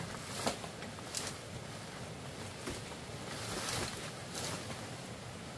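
Leafy branches and dry thatch rustling and crackling as they are pulled and shifted by hand, with a few sharp cracks and a longer rustle about two-thirds of the way through, over a steady hiss.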